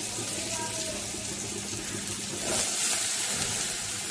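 Salted, squeezed radish greens sizzling in hot mustard oil in a steel wok, a steady hiss that swells briefly a little over halfway through.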